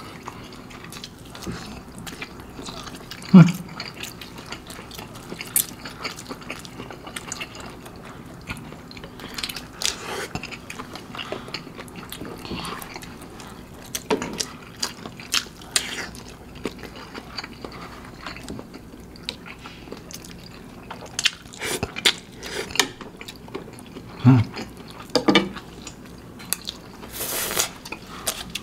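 Close-up eating sounds: a fork and chopsticks clicking against a glass dish and bowl, with noodles being slurped and chewed. There are a few short murmured hums, the loudest about three seconds in and two more near the end.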